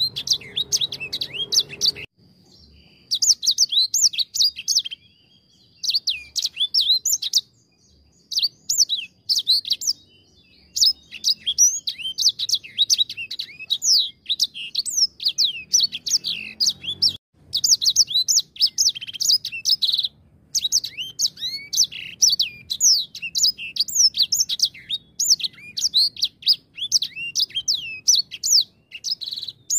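Edel sanger finch singing a fast, high, twittering warble in phrases of a second or two with brief pauses, running almost without break in the second half.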